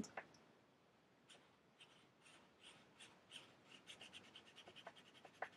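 Felt-tip nib of an alcohol marker scribbling back and forth on paper: faint scratchy strokes, quickening in the second half to about four a second. One light tap near the end.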